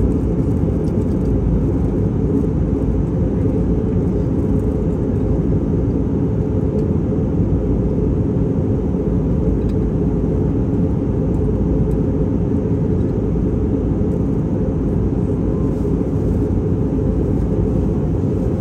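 Steady low drone of a passenger airliner in flight, engine and airflow noise heard inside the cabin.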